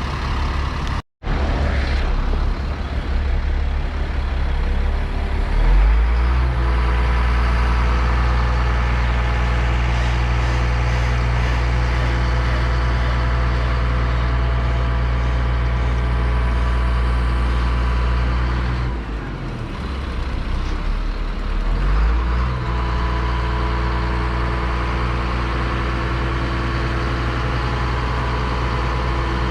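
A large vehicle or machine engine revs up and holds at steady high revs. It drops back about two-thirds of the way through, then revs up again and holds.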